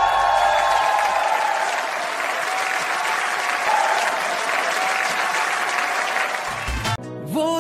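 Studio audience applauding in a dense, steady clatter of clapping, which cuts off abruptly about seven seconds in.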